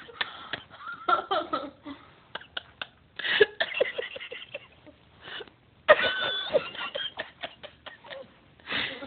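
People laughing and giggling in short bursts, with sharp clicks and crunches in between from the cucumber being eaten.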